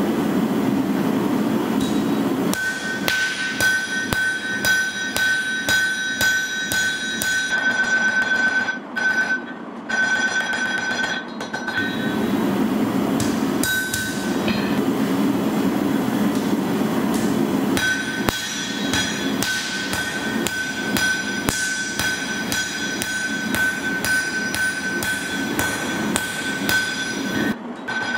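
Hand forging hammer striking a red-hot steel sword blade on an anvil in a steady run of blows while the blade is forged, the anvil ringing with a high steady tone between strikes. The hammering pauses briefly about nine and eleven seconds in.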